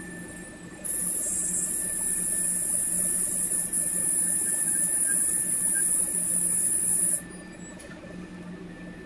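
Ultrasonic soldering iron running with its tip pressed to a glass slide, giving a steady high-pitched hissing whine that starts suddenly about a second in and cuts off suddenly about seven seconds in, over a faint steady hum. The whine comes from the tip's ultrasonic vibration, which scrubs away the surface so the solder wets and bonds to the glass.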